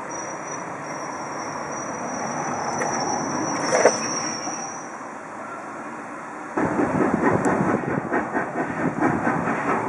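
Train of wagons and coaches rolling slowly on a heritage railway. Its rumble rises with a thin, steady high squeal over the first few seconds. About two-thirds of the way through, a sudden louder stretch of rapid, uneven clicking and clanking from the wheels begins.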